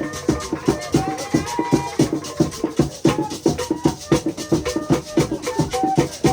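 Percussion music: drums beating a fast, steady rhythm with a shaken rattle, and short held high notes over it.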